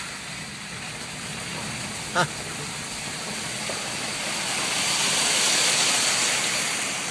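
Off-road vehicle rolling slowly through rushing water, a steady hiss of pouring water that swells about five seconds in, with the engine running low underneath. A brief pitched sound about two seconds in.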